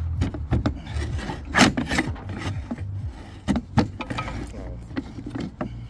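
Steel slate ripper scraping and rasping against slate while it is worked on a tight roofing nail under the slate, with irregular sharp knocks and clicks as the nail is worked loose.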